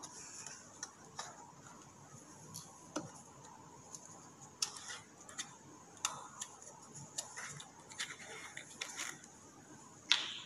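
Scattered light clicks and crackles of plastic bottles being handled: a thin empty water bottle gripped and moved, and the screw cap twisted off a plastic vinegar bottle. The clicks come irregularly, a few a second at most, with a slightly louder one near the end.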